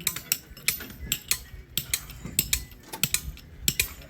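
Irregular sharp metallic clinks and knocks, a few each second, from steel and hand tools being worked by hand, over a low background rumble.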